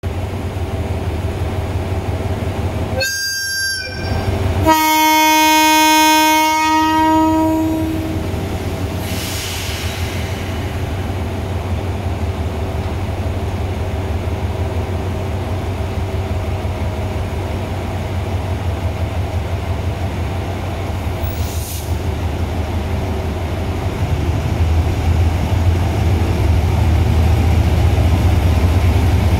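HID-class diesel-electric locomotive pulling a passenger train slowly into a station. It sounds its horn twice, a short blast about three seconds in and a longer, louder one a second later. Under it runs the steady low rumble of its diesel engine, which grows louder near the end as the locomotive draws alongside.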